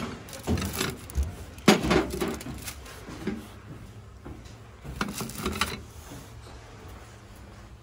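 Ceramic serving dishes being handled on a stacked store shelf: a dish is lifted off the stack and set back, giving a few short scrapes and knocks, the loudest a little under two seconds in and another about five seconds in.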